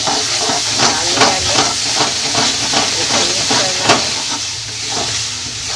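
Mashed potato and tomato-masala sizzling in hot oil in a kadhai as a spoon stirs it, with a steady hiss and frequent irregular scrapes and knocks of the spoon against the pan.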